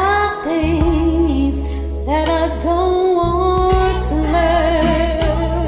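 A man singing long held notes with vibrato, several in a row, over a slow ballad backing track with a steady bass.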